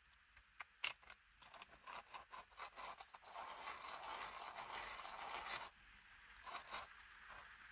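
3D-printed plastic engine-model parts and gears being handled and fitted together: scattered light clicks, then a steady faint scraping from about three seconds in, lasting some two seconds, then a few more clicks.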